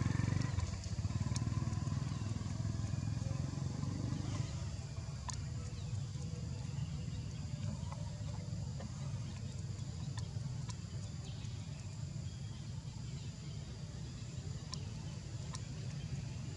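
An engine running steadily in the background, a low, even rumble with a fast pulse, with a few faint high ticks scattered over it.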